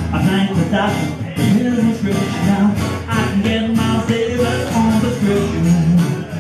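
A man singing a song while strumming an acoustic guitar in a steady rhythm.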